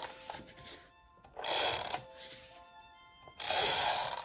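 Handheld tape runner dragged across cardstock in strokes of just over half a second each, about two seconds apart, laying down adhesive, over background music.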